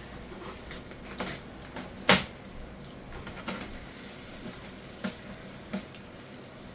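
Scattered knocks and clinks of a utensil against a plate and cutting board as cut barbecue ribs are lifted onto a plate, with one sharp knock about two seconds in and several lighter ones after it.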